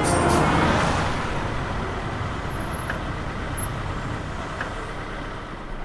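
Car road noise, a steady rushing that fades slowly, with a couple of faint clicks about halfway through.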